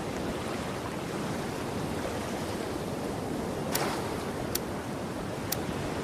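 Sea waves washing in a steady rush, with sharp clicks about once a second in the second half.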